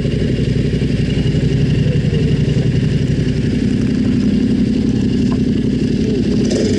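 Yamaha Ténéré 700's parallel-twin engine running steadily at an even, fairly low engine speed.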